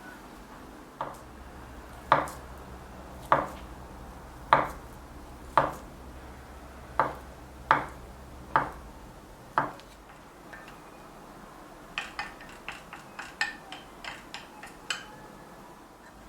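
Kitchen knife cutting down onto a cutting board in slow, single strokes, about one a second, nine in all. Near the end comes a quick run of lighter clicks and taps.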